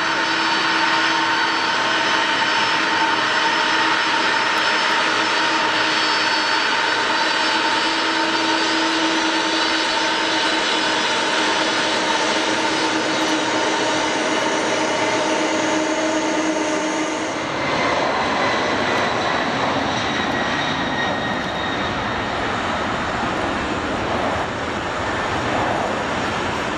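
Four-engine jet airliner's turbofan engines: a loud, steady whine with several high tones, changing about two-thirds of the way through to a deeper, broad rumble as the tones fade.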